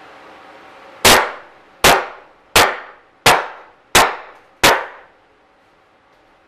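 Six sharp blows about two-thirds of a second apart, each ringing briefly, as a temporary wooden support post is knocked loose from under the ceiling joists to remove it.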